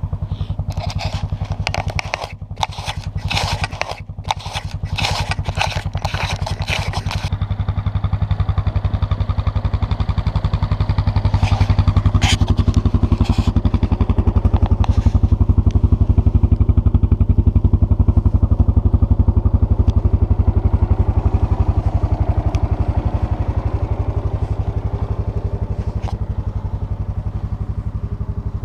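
ATV engine running steadily at idle, then working harder from about ten seconds in as the quad moves off. Over the first seven seconds there is a quick run of scraping, brushing noises close to the microphone.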